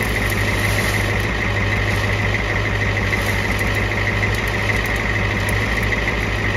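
A 1986 Ford's engine idling steadily, with an even low pulsing.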